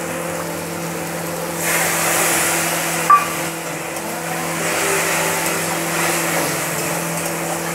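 Spices, potatoes and spring-onion stalks sizzling in hot oil in a kadai while a steel spatula stirs them; the sizzle grows louder about a second and a half in as a little water goes in to keep the spices from burning. There is one short tap of the spatula on the pan about three seconds in, over a steady hum.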